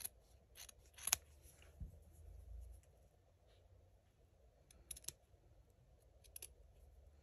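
Faint, scattered clicks and light handling noises of craft materials, a few close together near the middle and end, over a quiet low room hum.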